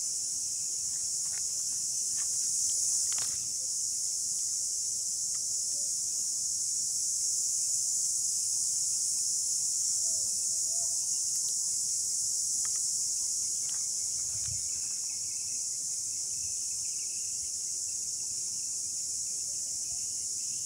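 Steady high-pitched chorus of insects, with a few faint ticks over it.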